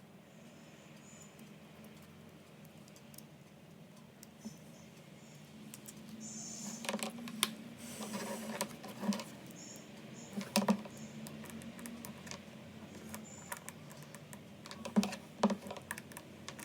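Light, irregular clicks and taps of small hard parts being handled and fitted together, starting about six seconds in and sharpest near the end, over a faint steady low hum.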